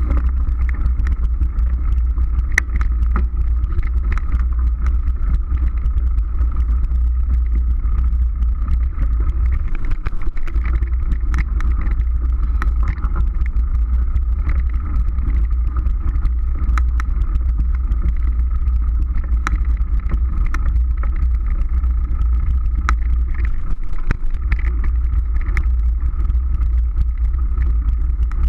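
Mountain bike riding along a dirt trail, heard through a camera microphone riding with the bike: steady low wind buffeting on the microphone over tyre noise, with scattered sharp clicks.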